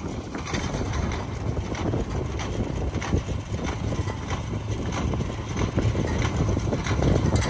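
Farm machine engine running steadily with a low hum, with light knocks and rattles now and then.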